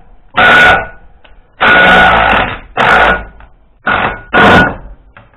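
Power tool run in five short bursts of about half a second to a second each, with a steady whine through each one, working on a manifold stud that came out seized in its nut.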